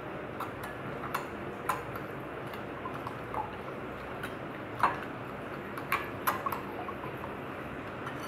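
A steel spoon beating a raw egg in a glass bowl: irregular clinks of the spoon against the glass, the sharpest about five seconds in.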